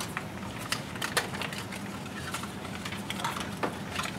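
Small cardboard-and-plastic servo box being handled and opened by hand: irregular light clicks and rustles of packaging, over a steady low hum.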